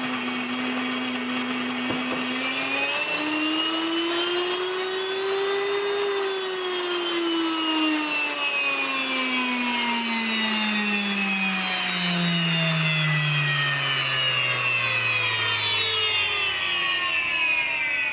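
WonderMill electric grain mill running loud, milling wheat berries into flour. Its high whine holds steady, rises in pitch over a few seconds, then slides slowly lower for about ten seconds.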